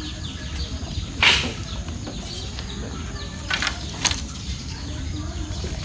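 Green bamboo poles handled and shifted on a wooden rack over a fire: a loud brief rustling swish about a second in, then two shorter rustles around three and a half and four seconds in, over a steady low rumble.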